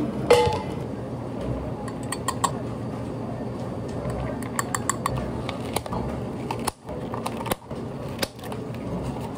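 Clinks and clicks of glassware, ice and plastic cups while iced drinks are made. There is a ringing clink about a third of a second in, then scattered light clicks, with plastic dome lids being snapped onto the cups near the end, over a steady background hum.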